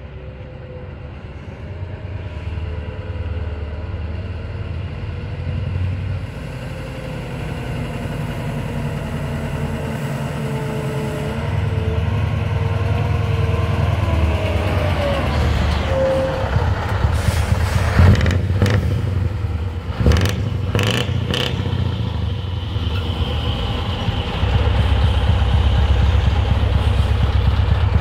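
Scania T580 V8 diesel truck running through a loud straight-through side-pipe exhaust, approaching and pulling up alongside at low speed, growing steadily louder and deeper. A few sharp cracks come about two-thirds of the way in, and the low exhaust rumble is loudest near the end as the truck is right beside the microphone.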